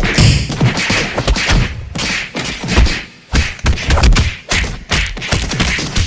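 Fight sound effects: a rapid, dense run of punch and body-hit thuds and whacks, many strikes a second, with a short break about three seconds in.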